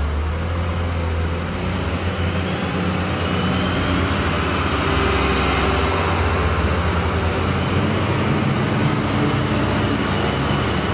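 Diesel engines of front-end wheel loaders and a dump truck driving past in a convoy: a loud, steady low hum of heavy engines, with a faint high whine over it.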